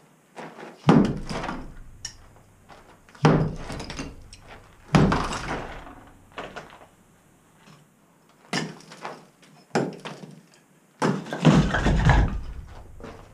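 Plaster and brick of a modern fireplace hood being broken away: about six heavy knocks, each followed by a clatter of rubble falling, the longest and loudest near the end.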